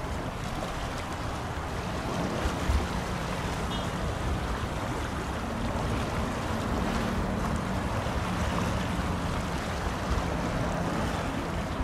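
Low steady drone of a large bulk carrier under way, over the wash of wind and water, growing slightly louder as the ship draws close.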